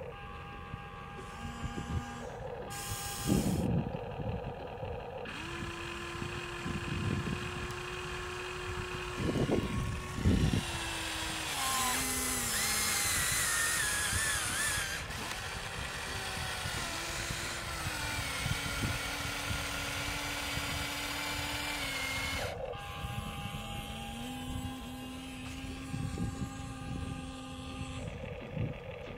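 Electric motors of a Huina RC excavator whining as it swings its boom and digs with its bucket. The pitch holds steady for a few seconds at a time, then steps up or down as different functions start and stop.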